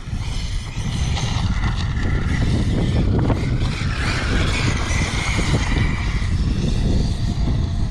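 Arrma Mojave 8S RC short-course truck's brushless electric motor whining as it drives through tall grass, its pitch rising and falling with the throttle over a steady low rumble.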